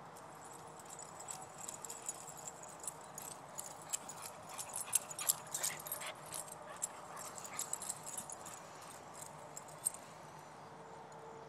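Two dogs running and playing on grass: a patter of quick, scattered clicks and rustles, busiest around the middle, dying away near the end.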